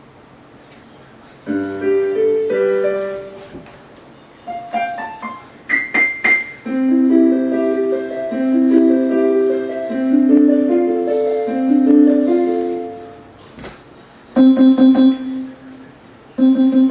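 Casio LK-300 electronic keyboard played with a piano sound: a few single notes, then a quick upward run, then a repeating phrase of low notes under chords, and two loud held notes near the end.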